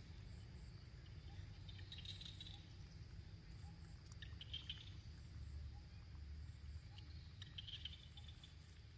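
Faint high chirping in the background, coming in short trilled bursts roughly every two to three seconds over a low steady rumble.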